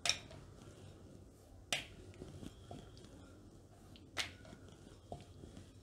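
Wooden rolling pin knocking against a wooden rolling board while dough is rolled out: three sharp, brief clicks about two seconds apart, with a softer one near the end.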